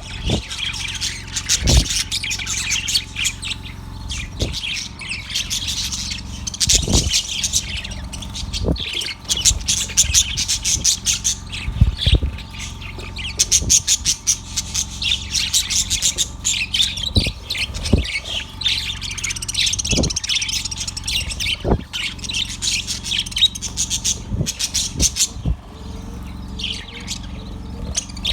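Budgerigar chirping and chattering in a continuous stream of quick, high warbles and squawky notes, with occasional short thumps or knocks in between.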